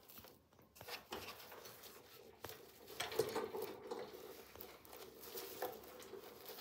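Rustling and crinkling of cloth and disposable pads as a hand works inside a hanging pigeon nest basket, with scattered small knocks, loudest about three seconds in.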